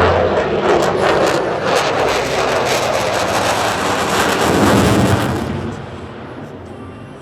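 F-22 Raptor fighter jet passing with its twin Pratt & Whitney F119 turbofans at high power: loud, dense jet noise with a crackle running through it, fading away after about five and a half seconds as the jet moves off.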